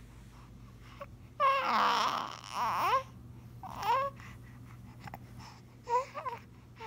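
Young baby fussing: a loud, wavering cry about a second and a half in that lasts about a second and a half, a shorter cry a second later, and small fussy sounds near the end.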